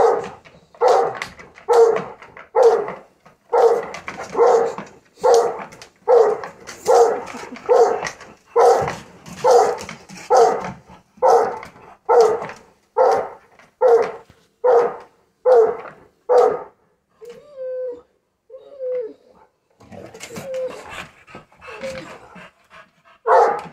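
Rottweiler and English bulldog barking excitedly and repeatedly, a little faster than one bark a second. The barking breaks off about two-thirds through into a few high whines and softer yips, then one more loud bark comes near the end.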